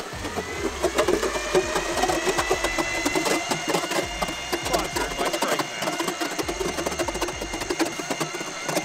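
Battery-powered electric ice auger drilling through lake ice. The motor whine rises as it spins up over the first couple of seconds and then holds steady, over a dense, rapid crunching of the blades cutting ice.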